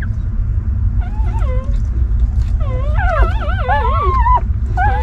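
Newborn puppies crying with high, wavering squeals and whines as they crowd in to suckle. Several cries overlap from about halfway through, and a new one starts near the end, all over a steady low rumble.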